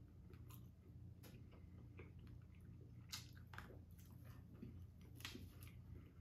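Faint chewing and wet mouth sounds of people eating pieces of a dark chocolate bar. Scattered soft clicks and smacks run through it, the sharpest about three and five seconds in, over a low steady hum.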